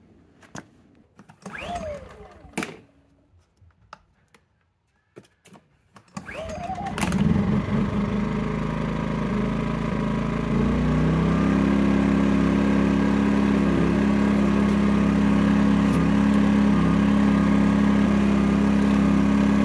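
Westinghouse iGen2800 inverter generator being pull-started for its first run, on choke. After a few seconds of handling noise the cord is pulled and the engine catches about seven seconds in. About ten seconds in it steps up to a louder, steady running note.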